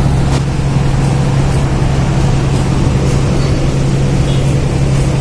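Loud, steady low drone of a ferry's engine machinery running, heard on the open deck beside the funnel casing, with one light click shortly after the start.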